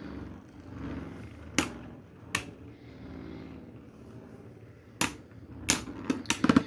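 Beyblade spinning tops whirring against each other in a plastic stadium, with a handful of sharp clacks as they collide. Two clacks come in the first half, then a quicker cluster near the end.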